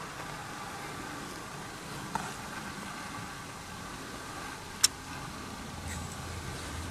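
Steady low background rumble and hiss, with a faint tick about two seconds in and a single sharp click nearly five seconds in.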